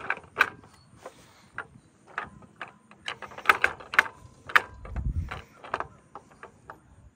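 Plastic keys on a playground piano-key panel clicking and clacking irregularly as a toddler presses and pushes them with his hands, with a dull thump about five seconds in.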